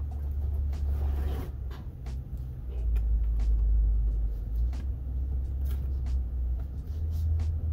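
A low rumble that swells and eases, with scattered small clicks and taps as a plastic pry tool works a laptop's charge port loose from its housing.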